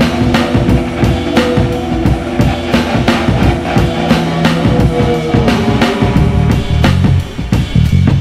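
Background music with a steady drum-kit beat over held notes, a deeper bass line coming in about halfway through.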